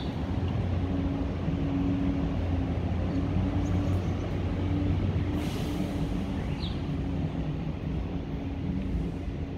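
Steady low mechanical drone of an engine or machine running, with a wavering hum. A few faint short chirps come through higher up.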